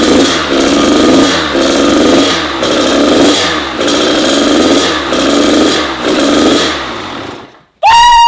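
Freshly rebuilt Kawasaki KX100 single-cylinder two-stroke engine on its first run after a top-end rebuild, revved in repeated throttle blips about once a second. The engine dies away about seven seconds in, and a loud high held tone starts just before the end.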